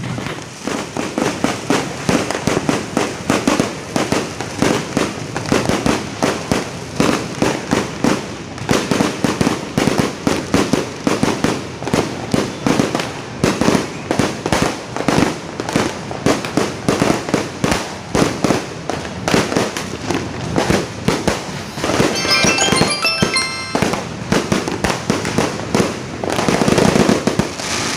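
A continuous barrage of firecrackers and fireworks: rapid, overlapping bangs and pops with no break, growing denser and louder near the end. About two thirds of the way through comes a short run of high, steady tones.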